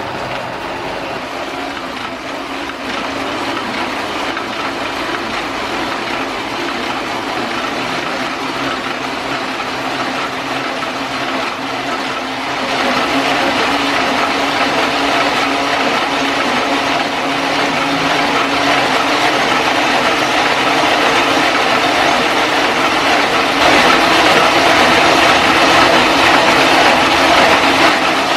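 Single-colour Offset 810 sheet-fed offset printing press running, a dense steady mechanical clatter that gets louder in steps about 3, 12 and 23 seconds in.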